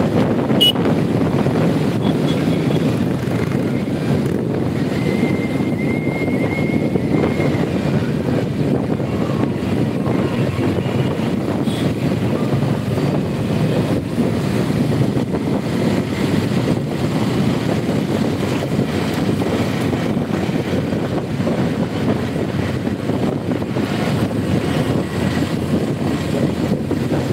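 Wind buffeting the microphone with steady road and engine rumble from riding a two-wheeler in city traffic. A faint thin high tone sounds briefly early on.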